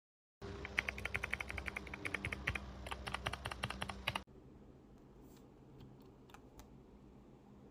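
Fast typing on a mechanical keyboard fitted with PBT pudding keycaps: a rapid run of key clacks for about four seconds, then it drops abruptly to a quiet background with a few scattered key clicks.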